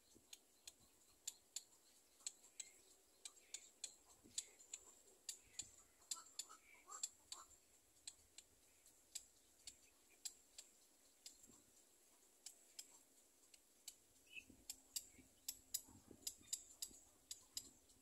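Faint, irregular sharp ticks, about two or three a second, with a few faint short chirps around the middle.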